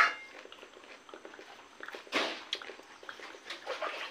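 Close-miked eating mouth sounds: wet chewing and lip smacks in scattered small clicks, with a sharp sucking slurp about two seconds in.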